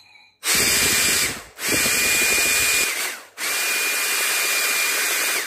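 A hair dryer's small DC motor and turbine fan, run in three short bursts as its leads are touched to the supply: each burst is a rushing of air with a steady high whine. The last and longest burst winds down with a falling whine near the end.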